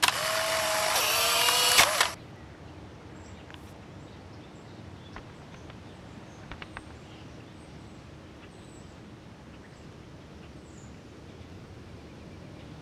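Instant camera firing: a click, then its motor whirring for about two seconds as it pushes out the print, stopping abruptly. Then only faint hiss with a few small ticks.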